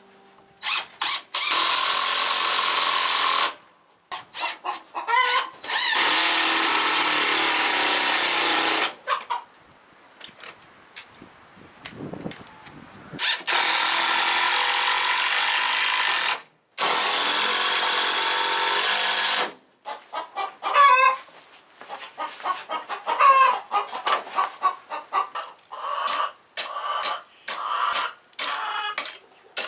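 A power tool runs in four steady stretches of two to four seconds each during pallet barn construction, while chickens cluck in the gaps between, most often in the last third.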